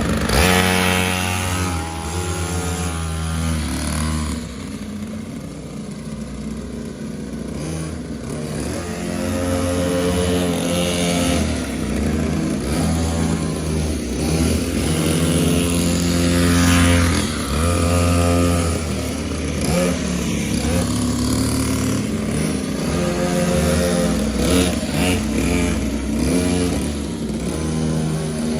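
Small mini motorcycle engines revving up and down over and over, the pitch rising and falling with each throttle blip.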